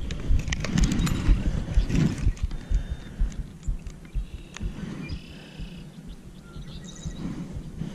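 Close handling noise: rustling, low bumps and scattered clicks as a digital fish scale is taken out and handled while a bass is held. A few faint high tones sound about five seconds in.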